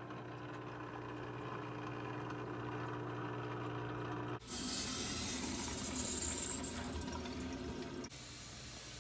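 Water running from a tap, heard in short cut-together clips: first a steady hiss under a steady low hum, then a louder, brighter rush from about four and a half seconds in, dropping back to a quieter flow near the end.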